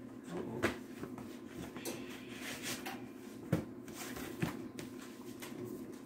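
Paper and cardboard rustling as a gift box is handled, opened and its contents slid out, with three sharp knocks: one about half a second in, one about three and a half seconds in and one about four and a half seconds in.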